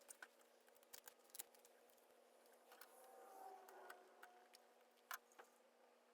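Near silence: faint room tone with a low steady hum and a few faint clicks, about a second in, near one and a half seconds and about five seconds in.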